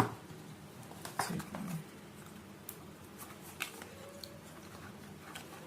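A few sharp clicks and light handling noises of the phone's box and paper documents being moved and set down, the loudest right at the start, with a brief low voice-like hum about a second in.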